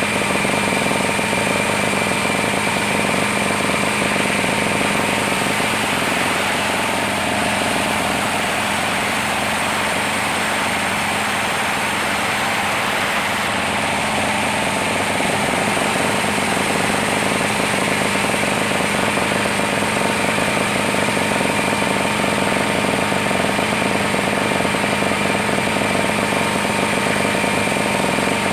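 Sawmill machinery running steadily: a loud, continuous drone with a fast rattle and a high, steady whine. The tone shifts slightly between about six and fifteen seconds in.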